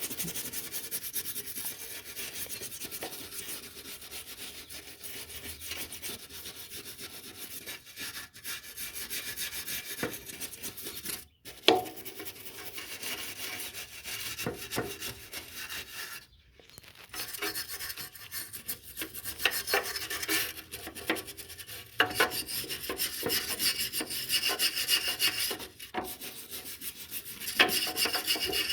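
Scraping and rubbing as caked debris, dog hair and dirt, is cleaned off a lawn mower deck by hand. It is a continuous scratchy rasping with a few brief breaks.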